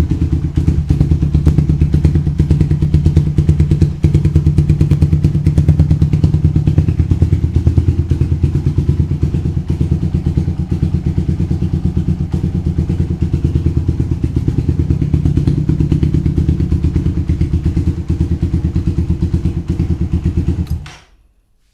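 Suzuki Satria FU 150 fuel-injected single-cylinder four-stroke idling through a Ronin aftermarket exhaust fitted with a small silencer insert, a steady rapid pulsing from the pipe. Near the end the engine is switched off and the sound cuts out suddenly.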